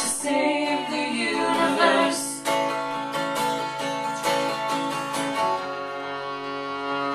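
Live acoustic folk music: an acoustic guitar strummed steadily with a violin playing sustained notes over it, in an instrumental passage between sung lines.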